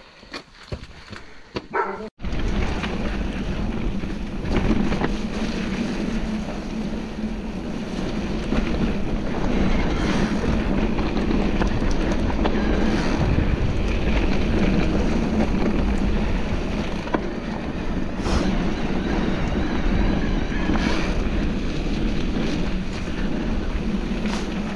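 Mountain bike being ridden along a trail: steady wind buffeting the microphone over a low rumble, with a few knocks from the bike. It starts abruptly about two seconds in after a quieter opening.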